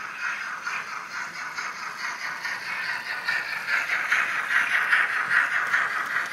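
OO gauge model train, a steam locomotive with a long rake of wagons, running along the track with a rapid, even rattle of wheels over the rail joints. It grows louder about four seconds in as the wagons pass close by.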